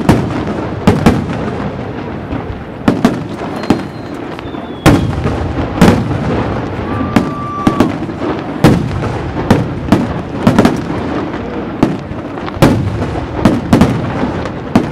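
Aerial fireworks display: shells bursting with sharp bangs at irregular intervals, often one or two a second, over a continuous crackle, with a couple of brief faint whistles.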